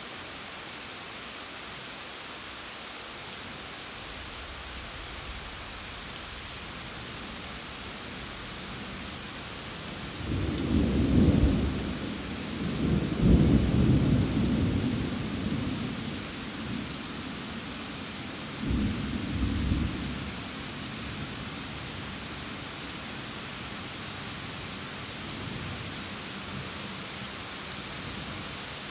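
Steady rain falling, with a long roll of thunder about a third of the way in that swells, peaks twice and fades. A shorter rumble of thunder follows a few seconds later.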